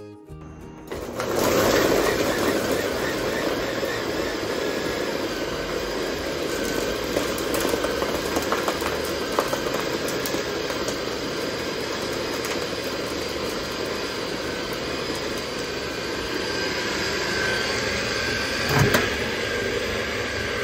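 Ninja blender motor starting about a second in and running steadily at speed, chopping vegetables, with a short louder knock near the end.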